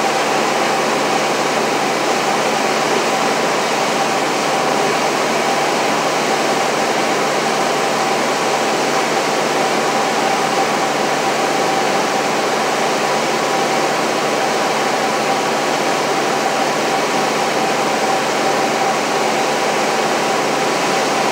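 Steady cockpit drone of a light airplane's piston engine and propeller in flight, with a steady high tone running through it.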